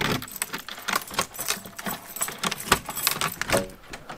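A bunch of keys jangling, with many sharp metallic clicks, as a shed door lock is unlocked.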